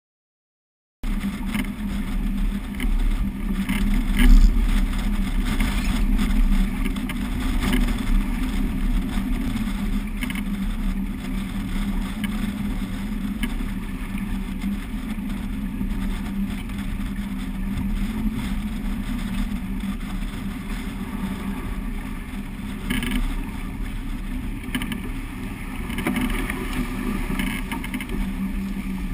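Wind buffeting the microphone over water rushing and splashing along the hull of a sailing yacht heeled hard in a stiff breeze. It begins about a second in, as a steady rumbling roar with a few brief louder gusts or splashes.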